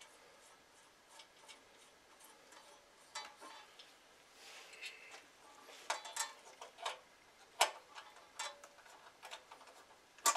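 Screwdriver driving screws into the metal plate of a Shopsmith scroll saw: small irregular metallic clicks and ticks, sparse at first and busier from about three seconds in, with a couple of sharper clicks near the end.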